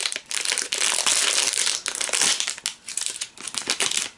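Foil blind-box pouch crinkling loudly as it is pulled and torn open by hand, in several bursts of crackling with short pauses between.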